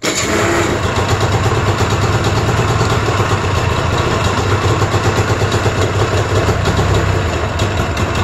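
Arctic Cat Pantera's 550cc two-stroke twin snowmobile engine running at a low, rough idle with a steady low pulsing beat. It runs rough because the idle speed is set too low, which the owner also puts down to bad gas.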